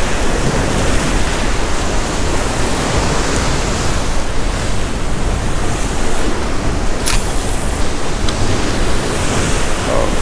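Ocean swell surging and washing against a rock ledge, with wind buffeting the microphone. A single sharp click comes about seven seconds in.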